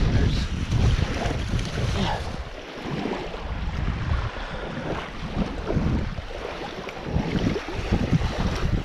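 Wind buffeting the microphone, a heavy low rumble that eases after about two and a half seconds, with irregular footsteps on sand.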